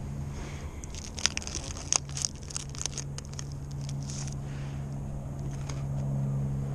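Plastic wrapper of a pack of peanut butter sandwich crackers being torn open and handled: crinkling and crackling rustles for a few seconds, from about a second in, over a steady low hum.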